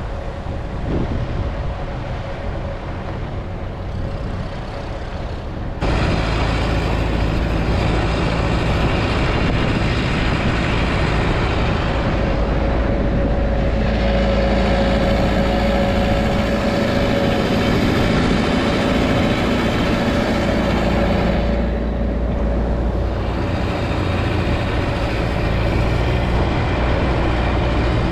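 Four-wheel-drive vehicle driving, with steady engine rumble and road noise. The sound jumps suddenly louder about six seconds in and stays there, with a steady whine in the middle stretch.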